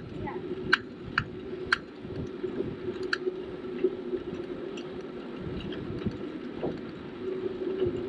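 Folding bicycle rolling along an asphalt path: a steady hum of tyre and ride noise, with several sharp rattling clicks in the first three seconds.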